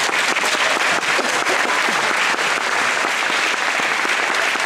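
Audience applauding, a steady clapping throughout.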